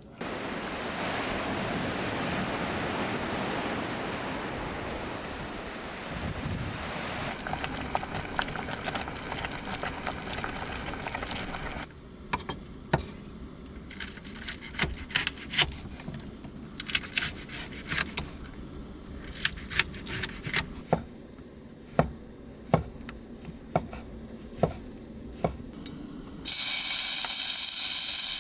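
Cooking sounds: a steady sizzling hiss, then a run of scattered sharp clicks of utensils, then a loud sizzle that starts suddenly near the end.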